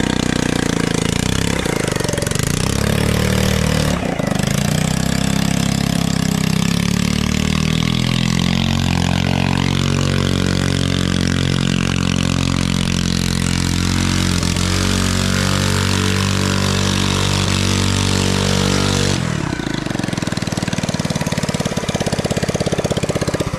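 Small petrol engine of a motorized picnic table running as it drives, its pitch rising and falling with the throttle early on and holding steady through the middle. About 19 seconds in the revs drop and it runs lower and softer.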